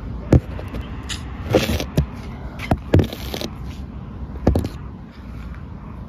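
Phone knocking and scraping against window glass while held up to it: several sharp knocks and rubbing scrapes over a low, steady background rumble.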